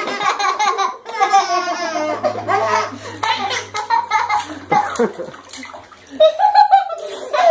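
A baby and a young boy laughing over and over, with water splashing in a bathtub.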